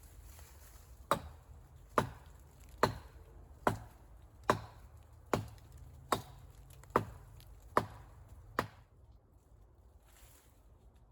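Wood being chopped: ten sharp, evenly paced blows a little under a second apart, stopping near the end.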